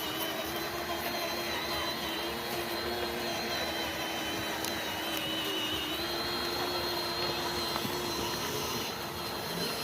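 Steady whine of a small electric motor, with a low hum and a high tone held throughout over an even background noise, typical of a radio-controlled model running.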